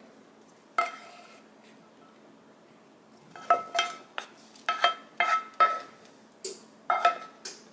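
A utensil clinking against a dish as the meat topping is scooped out onto the pizza. There is a single clink about a second in, then a quick irregular run of about a dozen clinks from about three and a half seconds, each with the same short ringing note.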